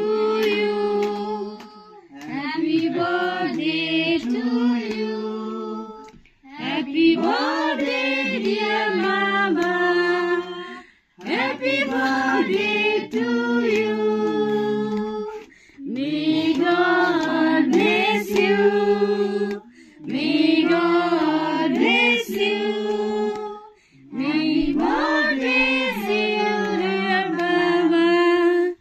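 Family singing a birthday song together, women's and children's voices among them, in phrases of a few seconds with short breaks between.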